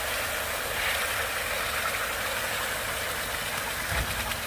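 31-meter boom concrete pump truck running steadily during the pour, with one low thump about four seconds in.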